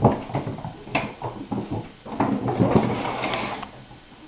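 Kittens' paws scampering and scrabbling on a bare wooden floor as they chase each other, with a thump as one leaps against the wall and shelf. Quick irregular patters and knocks, then a denser, louder scuffle about two seconds in that lasts over a second.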